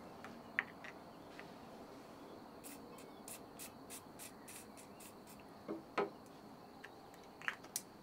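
Small Ballistol aerosol oil can sprayed in a quick run of short hisses, about five a second for two seconds, onto cotton string. A sharp click about six seconds in, from the can being handled, is the loudest sound.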